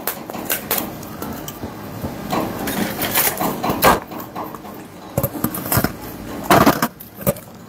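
Crackling and clicking from a thin clear plastic food tray and brittle tamarind pods handled close to a clip-on microphone.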